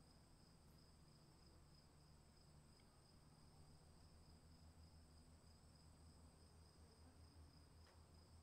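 Faint insects chirring: two steady, unbroken high trills over a low, fluttering rumble that grows slightly stronger about halfway through. Very quiet overall.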